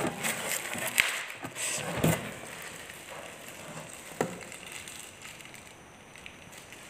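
Light crackling with a few sharp clicks as a piece of food is pulled apart by hand, thinning out after about two seconds.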